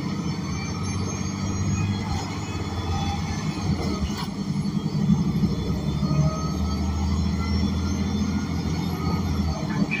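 Cabin sound of an ENC Axess BRT city bus with a Cummins Westport L9N natural-gas engine and Voith D864.6 automatic transmission: a steady low engine drone, which eases near the end, with a faint knock about four seconds in.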